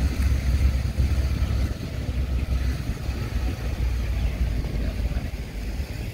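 Pick-up truck on the move: engine and ride noise making a steady low rumble.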